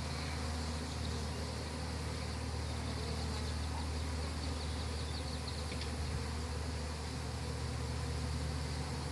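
Honey bees from the opened hive buzzing in numbers: a steady, unbroken drone.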